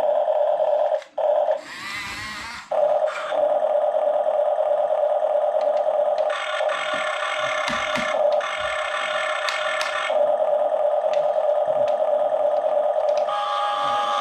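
Toy RC bulldozer running after being switched on, giving a steady electric whine. About a second and a half in, a brief hissing burst breaks into it, and from about six to ten seconds in the whine grows fuller.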